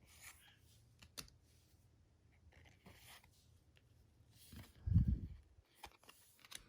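Trading cards being handled and flipped through: faint rustling and light clicks, with one dull low thump about five seconds in.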